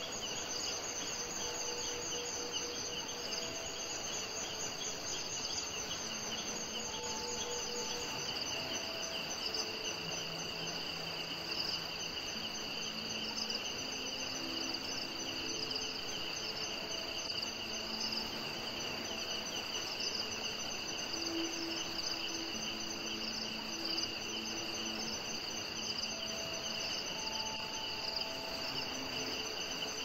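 Crickets trilling steadily, several overlapping high, pulsing chirr lines. Underneath are faint, soft held low tones that change pitch every second or two.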